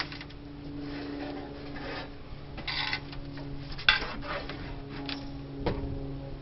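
Coin-op vending machine's outer shell being slid off and handled: rubbing and scraping, with a few knocks and a sharp click about four seconds in. A steady low hum runs underneath.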